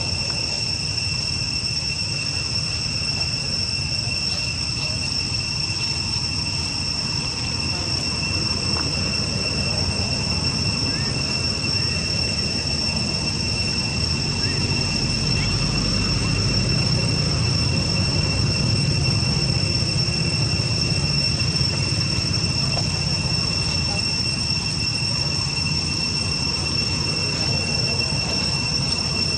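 Steady, unbroken high-pitched insect drone from crickets or cicadas, with a low rumble underneath that swells a little around the middle.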